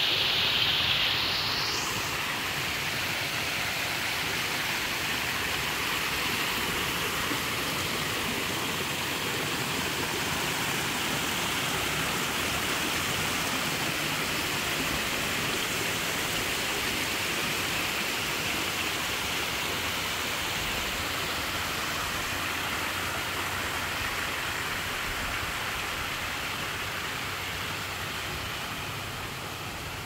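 Small artificial rock waterfalls splashing into a garden pond: a steady rush of falling water, a little brighter and louder for the first second or two, then softening slightly near the end.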